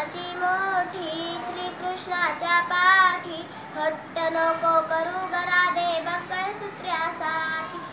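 A young girl singing a Marathi gavlan, a devotional folk song about Radha and Krishna, solo in a clear voice with held, bending notes and short breaths between phrases.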